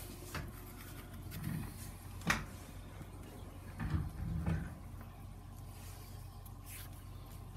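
Foam core board pieces being handled and laid down on a plastic cutting mat: a few soft knocks and a sharp click about two seconds in.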